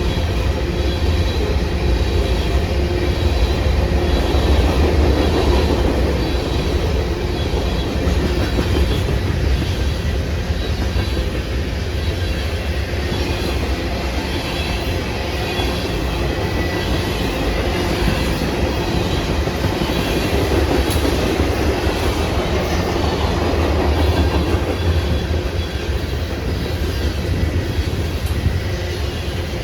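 CSX freight train rolling past close by: a steady rumble and rattle of steel wheels on the rails.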